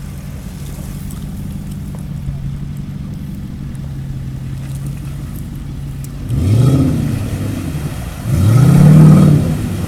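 Off-road 4x4 engine idling steadily, then revved twice, about six and eight seconds in, the second rev the louder.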